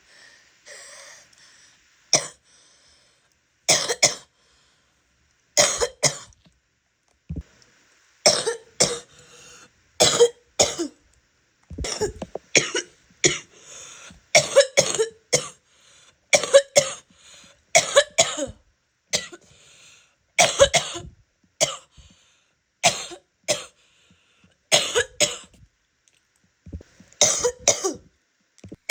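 A woman's wet cough: single coughs a couple of seconds apart at first, then fits of two or three coughs in quick succession, over and over.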